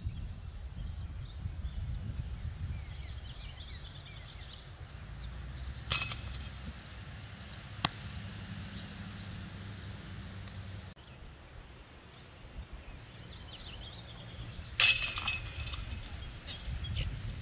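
Wind rumbling on the microphone, with faint bird chirps and a sharp crack about six seconds in. Near the end a disc golf disc crashes into the metal chains of a basket, and the chains jingle for about a second; this is the loudest sound.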